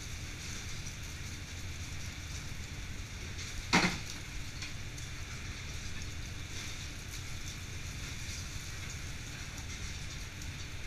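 Steady low rumble and hiss of a fishing boat's fish room, with one sharp knock about four seconds in.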